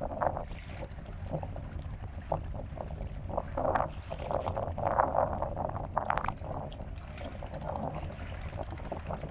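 Shallow water lapping and splashing in irregular bursts, loudest around the middle, over a steady low wind rumble on the microphone.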